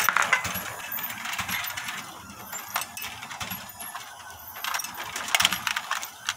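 Steel balls clicking and clattering against Meccano metal strips as they drop and roll through the model, some spilling out through a leak. The clicks come irregularly, with a quick run of them about five seconds in.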